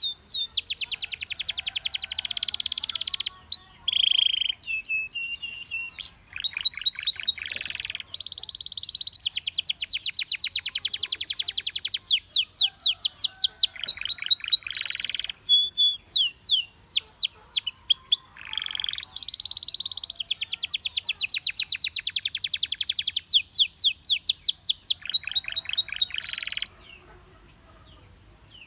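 Canary singing a long song of fast trills and rolling runs of rapidly repeated high notes, broken by short pauses, stopping about two seconds before the end.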